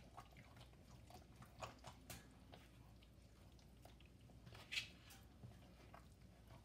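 Faint wet squelching and soft clicks of a thick flour batter being mixed by hand in a bowl, with one louder squelch near the end.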